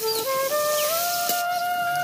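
Background music: a slow melody of long held notes, stepping upward in pitch.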